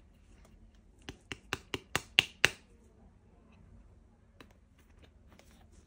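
A quick run of seven sharp clicks, about five a second and growing louder, then one more click about two seconds later, from plastic toy weapon parts being handled.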